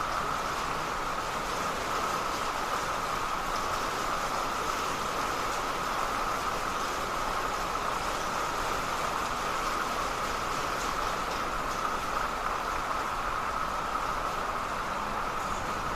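Steady rain falling, an even hiss that never lets up.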